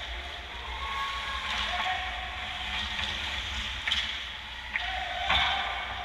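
Ice hockey game play: skates scraping on the ice with distant voices, and three sharp knocks of sticks and puck in the second half, the loudest about five seconds in during a scramble at the net.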